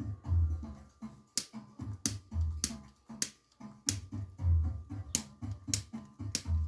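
Music with a pulsing bass line and finger snaps on the beat, about one snap every 0.6 seconds.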